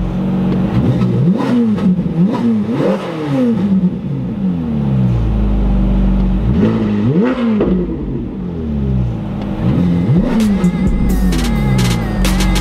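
Ferrari 458's naturally aspirated V8 through an IPE valved exhaust, heard from inside the cabin, revved while parked in a series of quick blips. The pitch rises and falls sharply on each blip and drops back to idle between them. Music comes in near the end.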